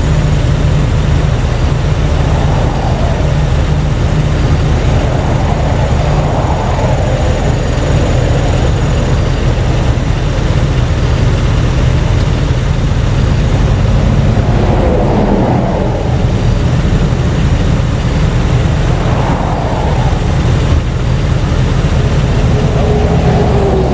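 A nearby vehicle engine runs at a steady idle, while traffic passes on the interstate in several rising and falling swooshes a few seconds apart.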